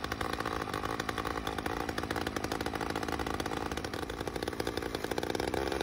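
Two-stroke chainsaw engine running steadily just after starting, warming up at a fairly even speed with a rapid, even firing buzz.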